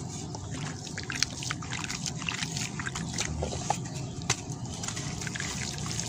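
A sand-cement block soaked in a basin of water, pressed and crumbled by hand: water sloshing and dribbling, with many small, irregular crackles and a few sharper snaps as the wet block breaks apart.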